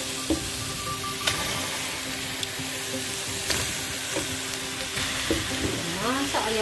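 Raw chicken wings sizzling in a hot steel wok, a steady hiss with a few sharp knocks of the pieces against the metal.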